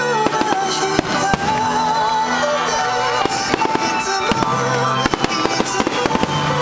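Aerial firework shells bursting in quick succession with many sharp bangs and crackles, over background music with held melodic notes.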